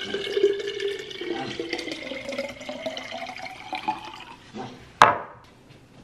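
Water poured from a glass pitcher into a glass mason jar over ice, the tone of the pour slowly rising as the jar fills. The pour stops about four and a half seconds in, followed by one sharp knock.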